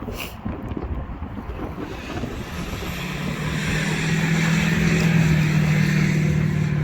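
Small toy remote-control car's electric motor and gears whining steadily, building up from about two and a half seconds in to a loud, even drone. Wind buffets the microphone throughout.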